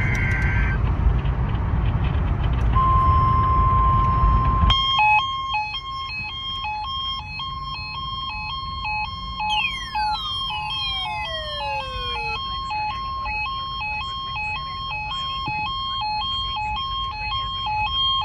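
A NOAA Weather Radio weekly test coming in: the tail of a SAME data burst, then a steady single-pitch alert tone lasting about two seconds. After that, several weather alert radios go off together, beeping in a repeating alternating two-pitch pattern, with a few seconds of falling sweep tones mixed in about halfway through. A low rumble under the first few seconds stops as the radios start alarming.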